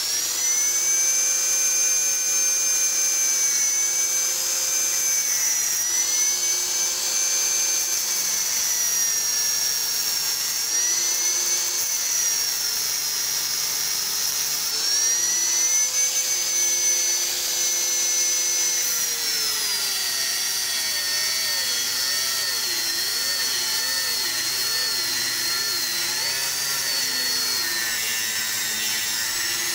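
Electric angle grinder with a thin cutting disc running and cutting through a 3 mm steel plate. Its high whine dips and recovers several times as the disc bites, then from about two-thirds of the way in it sinks lower and wavers unsteadily as the disc is pushed deeper into the cut.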